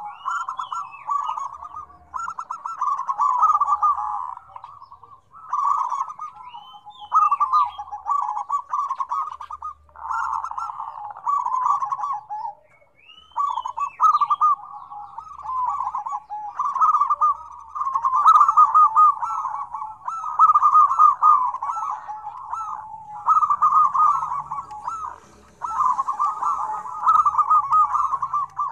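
Several zebra doves cooing together in rapid, rolling staccato phrases, one after another with hardly a pause.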